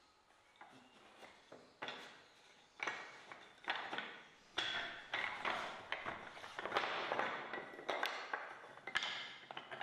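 Cut wooden sticks clacking against one another and the workbench top as they are gathered and stacked by hand: sharp, briefly ringing wooden knocks, sparse at first, then coming thick and fast for the last five seconds.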